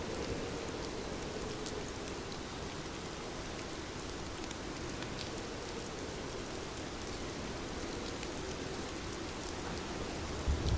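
Steady rain falling, with scattered individual drops ticking through it. A low rumble begins near the end.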